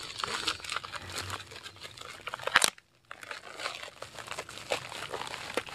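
A plastic shipping bag being torn open and crinkled by hand: irregular rustling and crinkling, with one louder rip about halfway through, after which the sound cuts out for a moment.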